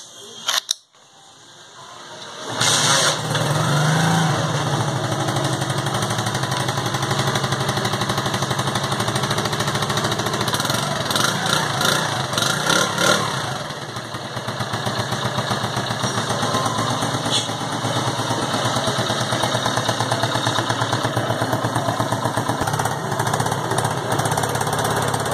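Union Star 70cc motorcycle's single-cylinder four-stroke engine starting after a couple of clicks, catching about two and a half seconds in and settling into a steady idle, briefly uneven for a few seconds partway through.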